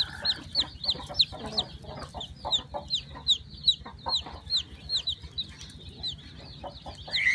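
A newly hatched chick peeping, a steady run of short, high, falling peeps about three a second.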